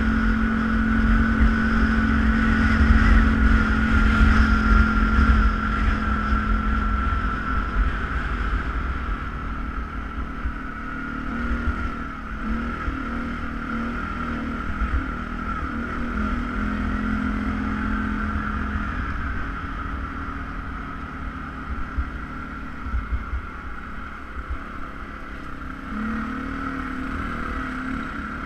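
ATV engine running under way, a steady drone over a low rumble, a little louder in the first several seconds and then settling lower.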